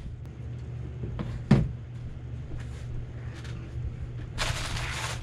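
A single thump against the table about a second and a half in, then the crinkling of a plastic snack bag being handled from a little past four seconds, over a steady low hum.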